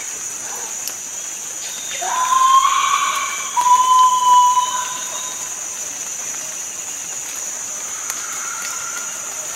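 A steady, high-pitched drone of insects, with two long whistled calls about two and three and a half seconds in. The first rises into a held note; the second is a held, clear note.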